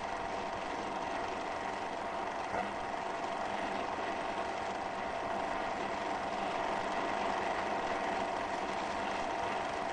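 A steady, unbroken drone of noise with faint held tones through it, slightly swelling in loudness toward the end.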